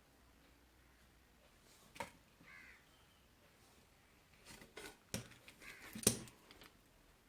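Faint clicks and taps from handling small tools and parts at a bench during soldering, with a sharper click about two seconds in and a busier run of ticks and clicks from about four and a half to six and a half seconds in.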